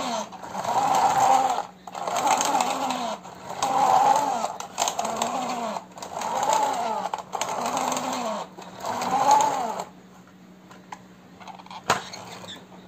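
Plastic toy dump truck pushed back and forth by hand, its wheels and gears whirring up and falling away with each push, about every second and a half. Near the end the whirring stops, leaving a few light clicks.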